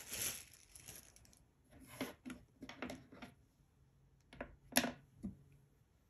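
Clear plastic packaging crinkling as it is handled, with a burst at the start and several shorter rustles and light taps later, as small plastic items are moved about on a table.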